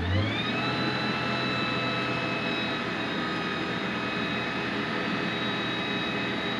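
Electric motor starting up, its whine rising in pitch for about half a second, then running steadily at high speed.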